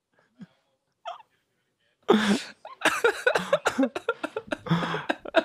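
Men laughing hard in breathless, wheezing, cough-like bursts that start about two seconds in.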